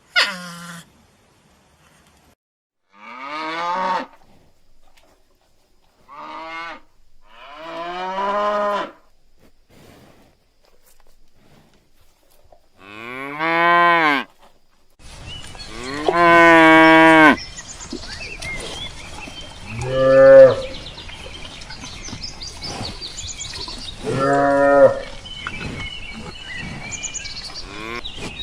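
Cows mooing, a series of separate drawn-out moos with a few seconds between them. About halfway through a steady background hiss comes in, followed by the longest and loudest moo, then shorter ones.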